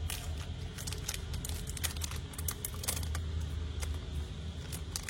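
Irregular light clicks and taps from a Zippo lighter being handled, over a steady low hum.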